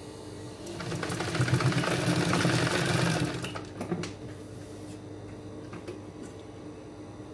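Industrial sewing machine stitching a seam through bag fabric in one run of about three seconds, then stopping, with a couple of sharp clicks just after. A steady low hum is heard throughout.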